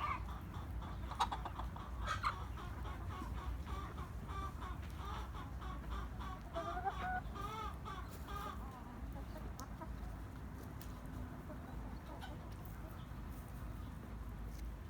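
Chickens clucking: a string of short calls, busiest in the middle, over a steady low rumble.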